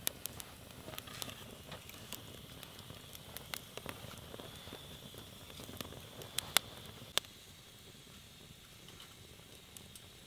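Firewood burning in a portable fire pit, crackling, with sharp pops scattered irregularly over a low steady hiss; the loudest pops come a little after six and seven seconds in.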